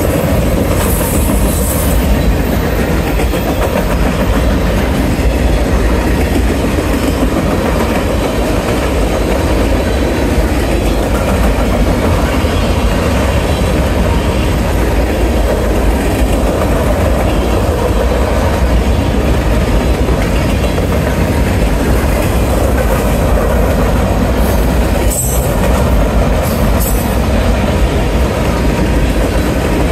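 Freight cars of a Norfolk Southern train rolling past close by: a steady, loud rumble of steel wheels on rail, with brief high squeals near the start and again near the end.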